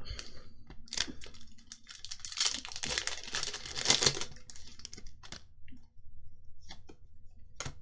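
Crinkling and rustling of a foil trading-card booster-pack wrapper, heaviest a couple of seconds in, with light clicks and taps of cards being handled and sorted.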